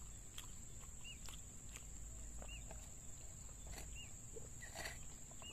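Faint outdoor ambience: a steady high-pitched insect drone, with a bird's short chirp repeating about once a second.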